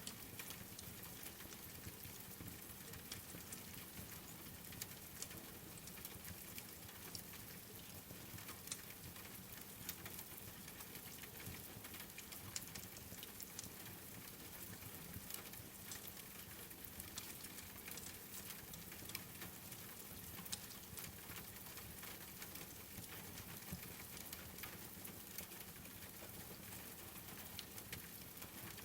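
Steady rain hiss with frequent small pops and crackles of a wood fire mixed in.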